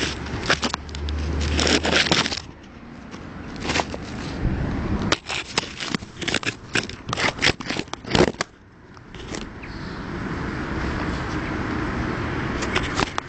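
Scraping and knocking of work on driveway kerbstones and their bedding, with a quick run of sharp knocks in the middle. A steady rushing noise takes over for the last few seconds.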